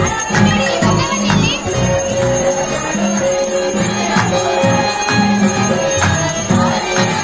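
Music with a steady low drum beat and jingling bells.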